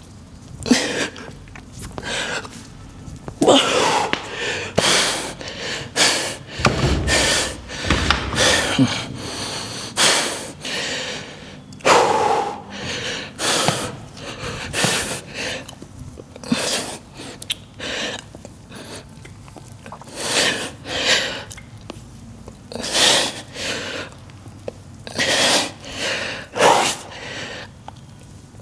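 A man's heavy, forceful breathing: short sharp exhales and gasps in quick, irregular succession, the breathing of someone exerting himself in a weight-training set.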